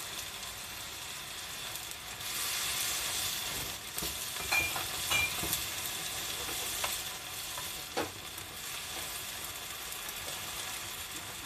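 Pork, bean sprouts and garland chrysanthemum sizzling in a frying pan as oyster soy sauce goes in and the stir-fry is stirred; the sizzle swells about two seconds in, and the stirring utensil taps against the pan several times.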